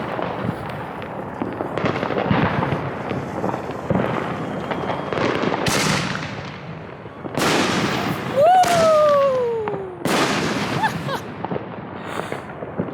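Fireworks going off: continuous crackling and popping with several louder bangs. About eight seconds in, a whistling firework shrieks, its pitch rising briefly and then falling for about a second and a half.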